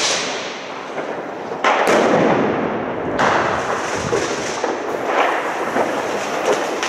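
New Year's Eve fireworks going off: a continuous hissing crackle, with a sharp crack at about two seconds in and another surge of crackling just after three seconds in.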